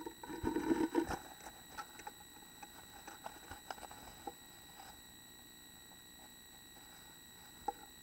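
A black-capped chickadee scuffling and scratching in the nest material inside a wooden nest box, loudest in the first second, then scattered clicks and taps that die away, with one more click near the end. A steady high electronic whine from the nest-box camera runs underneath.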